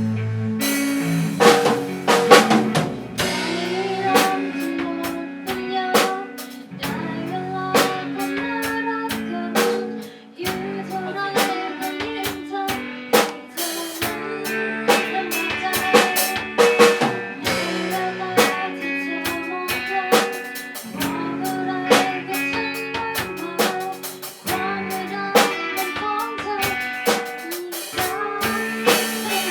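Instrumental music with a steady drum-kit beat: snare and bass drum under sustained keyboard or guitar chords, with a repeating melodic line.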